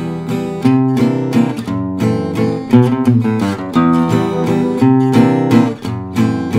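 Gypsy-jazz acoustic guitar strummed in waltz time, with repeated chord strokes that change harmony every few beats, running through the intro changes: E minor, C7, F-sharp half-diminished, B7.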